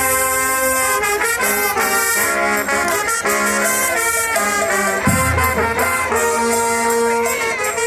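Marching band brass section, trumpets and trombones, playing a run of held chords that change every half second or so. Deep low brass or drum notes come in about five seconds in.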